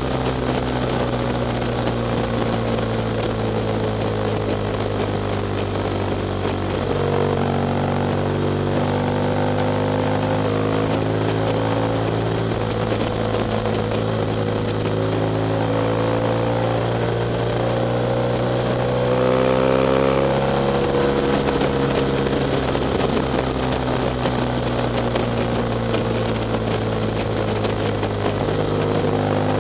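BMW R1200GS boxer-twin engine running at cruising speed on the move, with wind rushing over the microphone. The engine's pitch steps at gear changes about a quarter of the way in and again near the end, and it rises briefly under acceleration about two-thirds of the way through.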